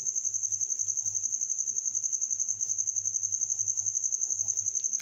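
An insect trilling: one steady high note that pulses rapidly and evenly without a break.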